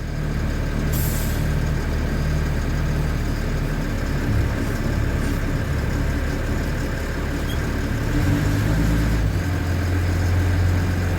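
LMTV truck's Caterpillar diesel engine running steadily, its pitch stepping up around four seconds in and again near eight seconds. A brief hiss of air sounds about a second in.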